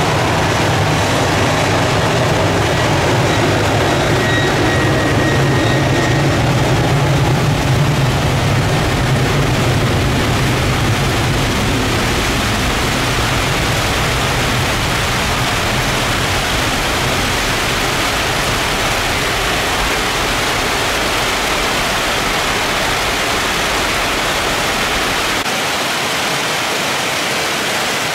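Jet airliner engines rumbling on a wet runway, fading out over the first ten seconds or so, under a steady hiss of torrential rain that is left on its own for the rest.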